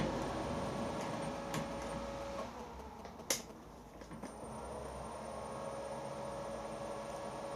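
Machine tool motor running with a steady whine while power tapping a 5mm thread, dropping in pitch as it slows about two and a half seconds in, with one sharp click about three seconds in before it runs steadily again.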